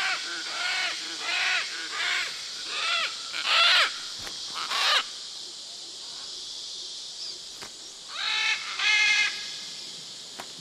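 Great green macaws giving harsh, repeated distress squawks, about two a second, as they are caught and handled, with two louder screeches midway. The calls then drop away, and a short burst of squawks comes again near the end.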